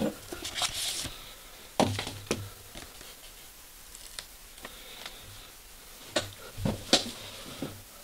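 Handling noise from a paper sticker sheet: a brief paper rustle about half a second in, then several sharp clicks and taps as a sticker is peeled from its backing and handled.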